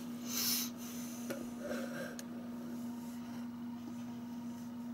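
Over-ear headphones being pulled on and settled over the ears: a brief rubbing rustle about half a second in, then a small click and softer handling rustles. A steady low hum runs underneath.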